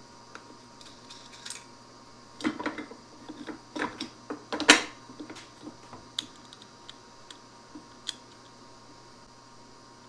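A run of sharp knocks and clicks from handling workpieces and tools, clustered about two to five seconds in with the loudest knock near the five-second mark, then a few lighter ticks.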